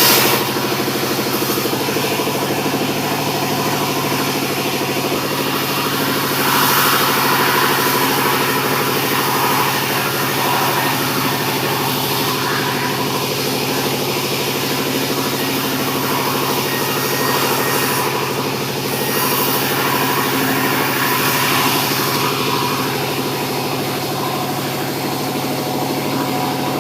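Sawmill running steadily, its saw cutting sengon (albizia) timber into 6x6 rafter stock. The machine's pitch holds steady while the loudness swells and eases a few times as the cut goes on.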